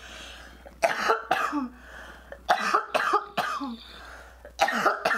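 A woman coughing hard after inhaling a dab of cannabis concentrate from a glass rig, in three fits of about three coughs each, spaced roughly two seconds apart.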